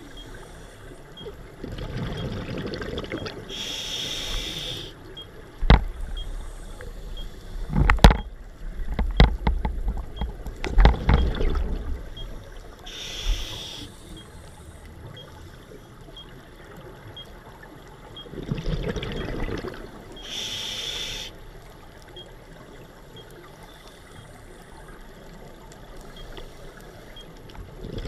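Scuba breathing heard underwater through a camera housing: a short regulator hiss on each inhale and a burble of exhaled bubbles, in slow cycles. A few sharp knocks and a burst of bubbling come in the middle.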